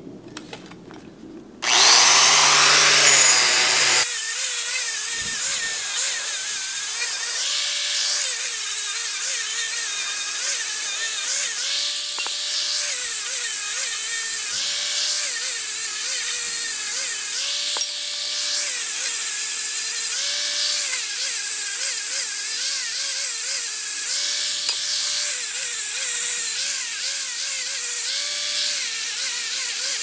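Electric angle grinder with a wire brush starting up and running against the cut ends of steel greenhouse pipe, deburring them. From about four seconds in the sound is sped up four times, so the motor's whine runs higher, its pitch stepping up and down every couple of seconds.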